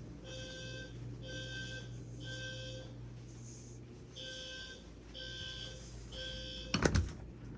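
Fire alarm sounder beeping in the temporal-three evacuation pattern: three half-second tones about a second apart, a pause, then three more, signalling that the system is in alarm after a pull station was activated. A loud sharp click near the end.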